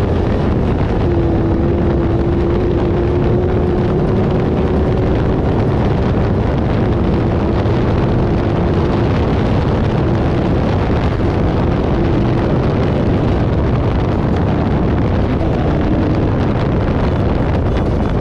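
Off-road race vehicle driving at speed: the engine runs at a steady pitch under heavy wind buffeting on the microphone and loud road noise. The engine note fades in and out under the noise several times.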